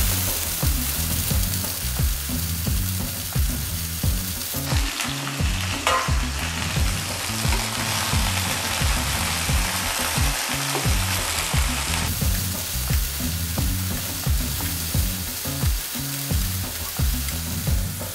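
Cauliflower florets sizzling as they fry in hot oil in a kadai, stirred with a spatula, a steady crackling hiss. A low background music beat runs underneath.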